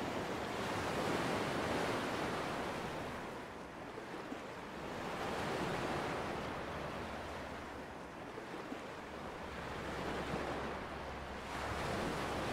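Small waves washing onto a sandy shore, the wash swelling and fading every few seconds.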